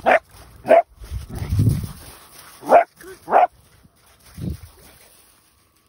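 Sprocker spaniel puppy barking: two sharp barks in quick succession, a low rumble, then two more sharp barks about three seconds in and a weaker, lower bark about a second after those.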